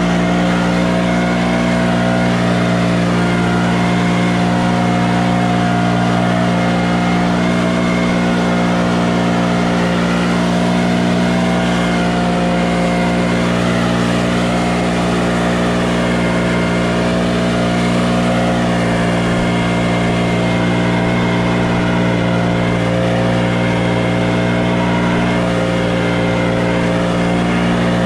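An engine running steadily at one constant speed, with an even, unchanging drone.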